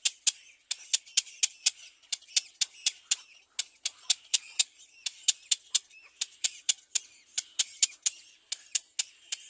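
Baby bird calling from the nest in a rapid run of short, sharp, high calls, about three or four a second.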